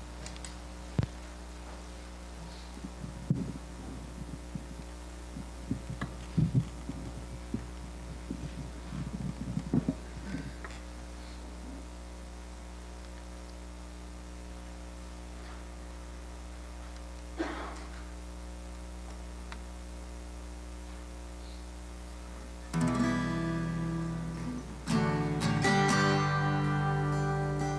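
Scattered knocks and shuffles of people sitting down in wooden pews over a steady hum, then about 23 s in an acoustic guitar strums a chord and lets it ring, strumming again about two seconds later: the opening of a worship song.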